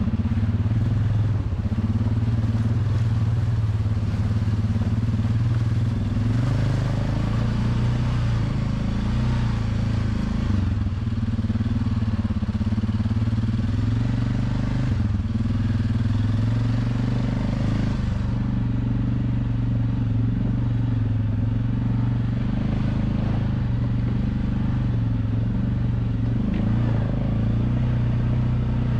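ATV engine running at a nearly steady pitch while riding along a trail.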